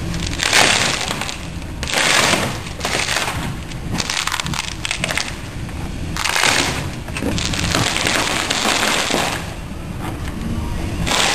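Compoflex 150 peel ply being torn off a cured composite boat-hull plug: a crackling rip with each pull, in about seven pulls of roughly a second each, over a steady low rumble.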